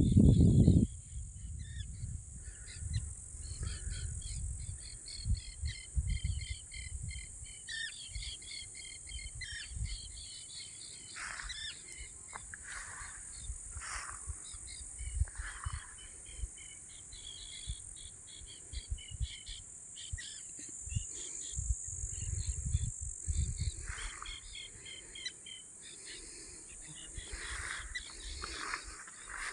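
Birds chirping and calling over a steady high insect buzz, with gusts of wind rumbling on the microphone.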